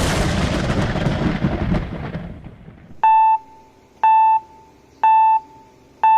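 A boom-like rumble that fades away over about two seconds, then four short electronic beeps a second apart, like a countdown.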